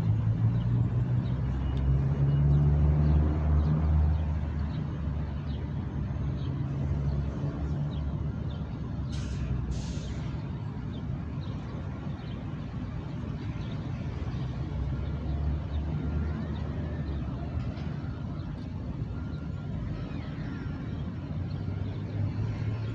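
Street traffic running past, with a heavy engine rumble loudest in the first few seconds, then a steadier, quieter hum. About nine seconds in come two short hisses of air, about half a second apart.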